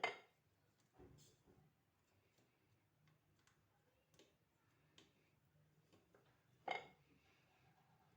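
Near silence broken by a few light knocks and clicks as ingredients and cookware are handled at a couscoussier. A sharp knock comes at the start, a smaller one about a second in, faint ticks follow, and a louder knock comes near the end.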